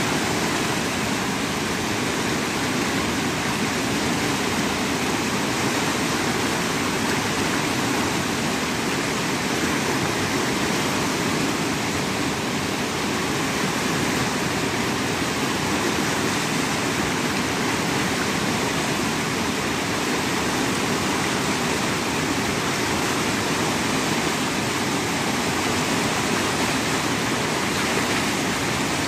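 Rappahannock River in flood, brown whitewater rushing steadily through rapids over boulders.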